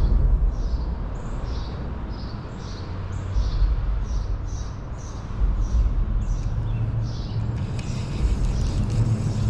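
A bird singing a steady run of short, high, down-slurred notes, about two a second, over a low rumble. Near the end a rustling hiss joins in.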